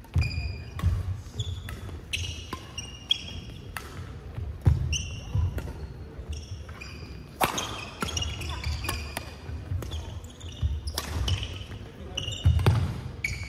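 Indoor badminton doubles rally: rackets striking the shuttlecock in quick, sharp hits, with shoes squeaking and feet thudding on the court floor. The loudest hits come about five seconds in and near the end.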